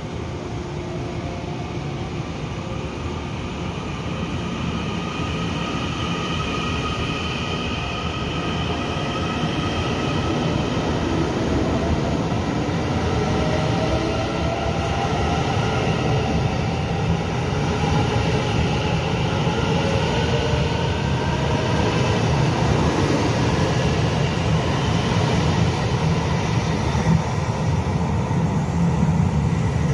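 Taiwan Railway EMU900-series electric multiple unit pulling out of the station. Its traction motors give a whine in several tones that rise in pitch as it picks up speed, over a wheel-on-rail rumble that grows steadily louder.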